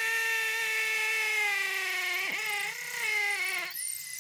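Cordless hammer drill boring into concrete with a masonry bit: a steady high whine that sags in pitch as the bit loads up, with a brief dip about two seconds in. It stops shortly before the end.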